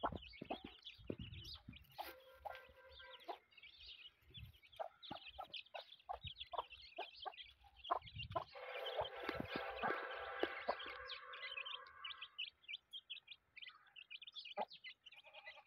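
Young chicks peeping, with short high calls all through. A mother hen clucks among them, in one longer run of calls from just past the middle to about three quarters through.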